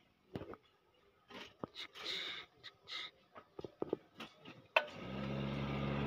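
A few light handling clicks and rustles, then a sharp click about five seconds in as a small electric forge blower is switched on; its motor starts humming steadily and grows louder as it spins up.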